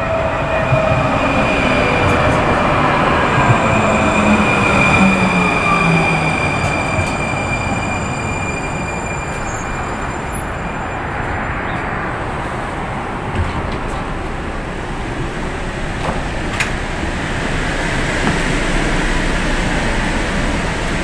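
Valley Metro light rail train pulling into the station: its electric drive whine falls in pitch as it slows to a stop, over a steady rolling rumble. A few short high beeps come about ten seconds in, and a single click a few seconds later.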